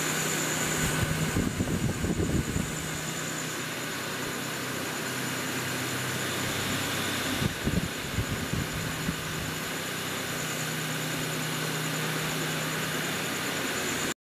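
A steady engine-like hum with a low drone and a thin high whine, broken by rumbling buffets around two seconds in and again around eight seconds. It cuts off sharply just before the end.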